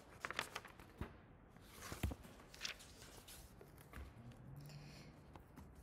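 Faint scattered clicks and knocks over quiet room tone.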